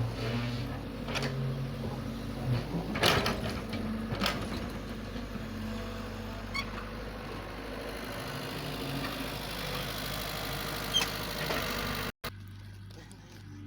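Large excavator's diesel engine running steadily, with a few sharp clanks. The sound cuts off abruptly near the end, and a quieter engine hum follows.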